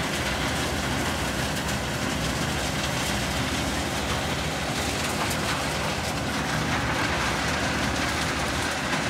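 Doppstadt SM-620-K Plus trommel screen running steadily, its engine droning under the churn of the rotating screening drum, with a faint scattered clatter of stones coming off the conveyor.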